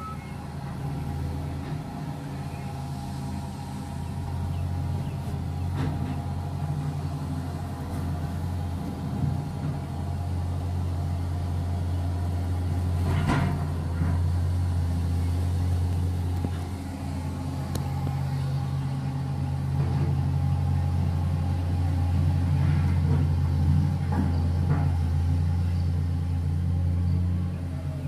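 Diesel engine of a Caterpillar hydraulic excavator running steadily under working load while digging coal, its hum swelling and easing as the machine works. A few sharp knocks come through, at about six seconds, thirteen seconds and twenty-four seconds in.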